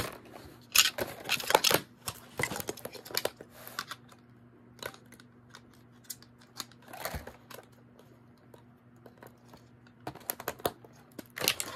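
Irregular plastic clicks, taps and rattles from a pink plastic doll-playset piece being handled and fitted. The clicks come thick and fast for the first few seconds, thin out to a few isolated ones in the middle, and bunch up again near the end.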